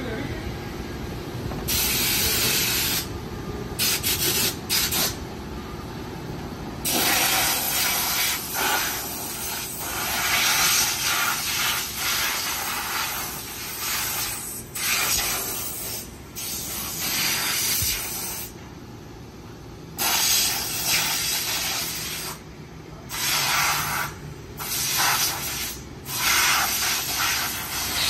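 Compressed-air blow gun on a coiled air hose hissing in repeated blasts, cutting on and off every few seconds, as a car's cargo area is blown out.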